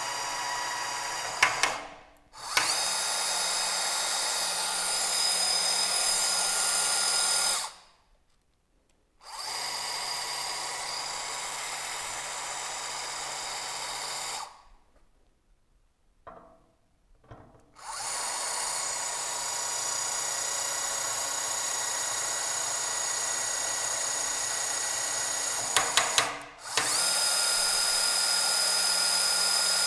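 Electric tapping arm's motor running at low speed as it screws M10 self-tapping thread inserts into an aluminium plate, stopping and starting several times. About a second in and again near the end a quick cluster of clicks marks the slip clutch releasing as the insert bottoms out, followed by a short pause and a louder run as the tool reverses out.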